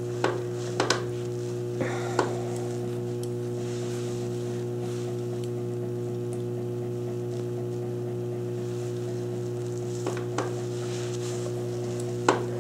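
A steady electrical hum, with a few short clicks and scrapes of a metal grooming comb worked through a standard poodle's coat: several in the first couple of seconds and a few more near the end.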